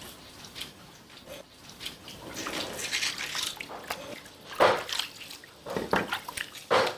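Cleaver cutting through a raw fish fillet on a cutting board: wet slicing and scraping of the flesh, with a few sharper knocks of the blade on the board in the last few seconds.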